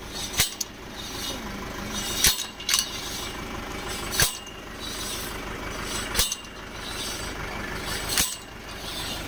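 Borewell drilling rig with its engine running steadily and a sharp metallic clank about every two seconds, five in all, as the rope-hauled weight strikes on the steel drill rod.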